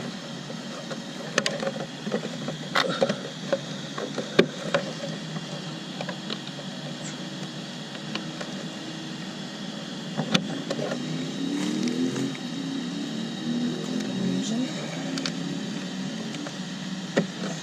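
Scattered plastic clicks and knocks as body clips are fitted to a 1/8-scale RC truck's body. About ten seconds in, a low wavering hum comes in for several seconds.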